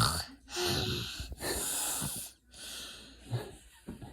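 Deliberate snoring on request: a run of about three long, hissing, wheezy breaths, each about a second long, dying away near the end.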